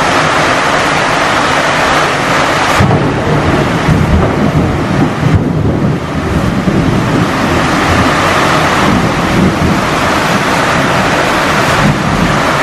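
Heavy downpour: a loud, steady hiss of rain pouring down. A deeper rumble joins it about three seconds in and runs on under the hiss.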